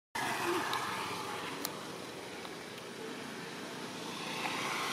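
Steady road traffic noise with no clear engine pitch, swelling near the end as a vehicle comes closer, with one faint sharp click about a second and a half in.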